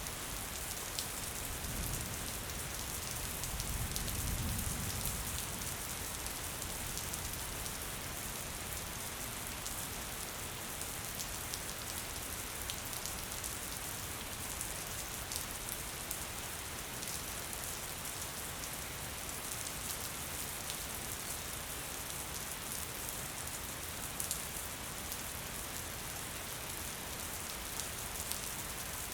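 Gentle, steady rain falling, with a patter of individual drops. A brief low rumble swells and fades a few seconds in.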